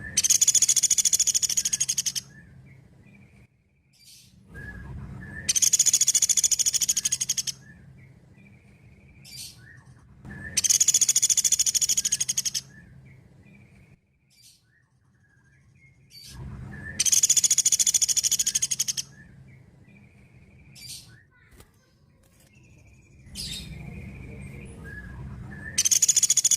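Common flameback woodpecker (pelatuk beras) giving its rapid, high trilling call, each about two seconds long, repeated every five or six seconds; four calls, with a fifth starting near the end.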